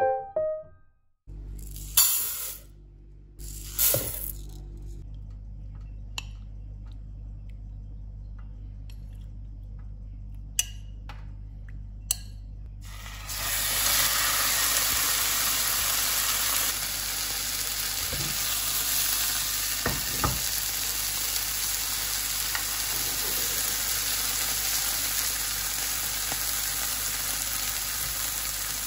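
Marinated chicken pieces sizzling steadily in a hot non-stick frying pan, the hiss starting suddenly about halfway through as the chicken and marinade go in. Before that, a low steady hum with a few clicks and knocks.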